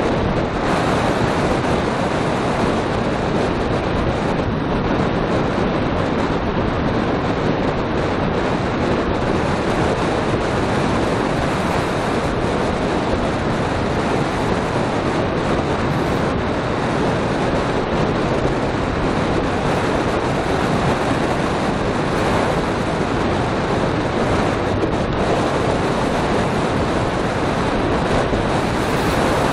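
Steady, loud wind rush over a camera microphone on a road bicycle descending at about 55–65 km/h.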